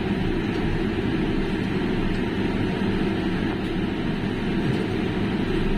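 A steady low rumble of noise with no distinct events in it.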